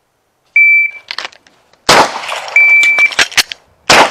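A shot timer's start beep, then a pistol drawn from the holster and fired: a loud echoing shot about a second and a half after the beep, sharper cracks, and another shot near the end. A second identical beep sounds two seconds after the first, the timer's par-time signal for a two-second draw-and-fire drill.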